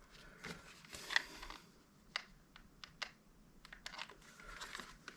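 Quiet handling noise of scattered light clicks and crinkles as a strip of self-adhesive foam tape is laid and pressed into a plastic chime module housing.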